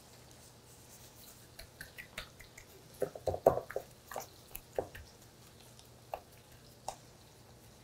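A hand in a plastic glove rubbing seasoning into calamari tubes on a plate: faint, irregular wet squishes and glove crinkles, busiest in the middle, with a couple of single ticks later on.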